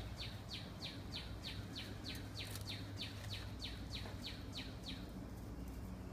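A songbird singing a fast series of down-slurred whistled notes, about three a second, that stops about five seconds in.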